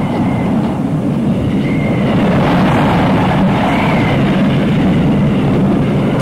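Storm sound effect in a cassette audio drama: a loud, steady rush of wind, with a faint whistle that rises and falls a few times.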